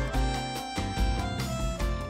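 Background music over the closing title card.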